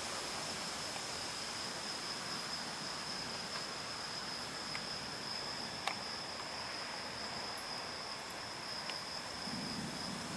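Crickets chirping in a steady high-pitched trill over faint background hiss, with a faint click about six seconds in.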